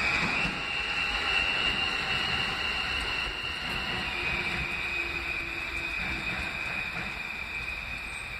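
R160A subway train running away down the track, its noise slowly fading as it goes, with a steady high whine over the running noise.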